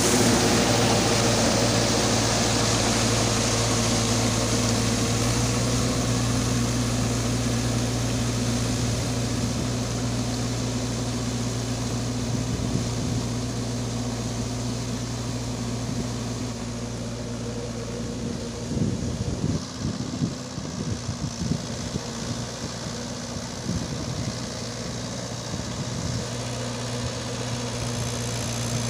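Mahindra 575 XP Plus tractor's four-cylinder diesel engine running steadily while it pulls a rotavator through flooded mud, growing gradually fainter as the tractor moves away.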